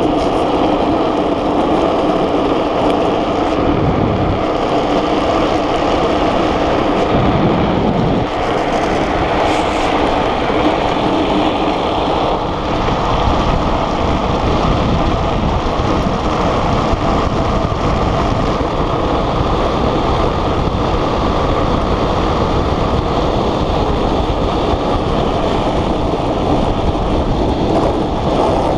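Steady loud rush of wind over the microphone and the hum of a gravity speed trike's wheels rolling fast on rough asphalt, with no engine sound.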